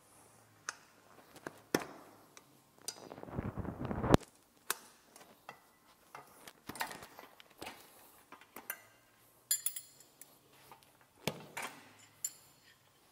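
Steel tire irons clinking and knocking against a spoked dirt bike rim as the bead of a Pirelli MX32 knobby tire is levered over the rim edge. About three seconds in, a scrape of rubber over metal builds for about a second and ends in a sharp loud knock. There are a few ringing metal clinks near the ten-second mark.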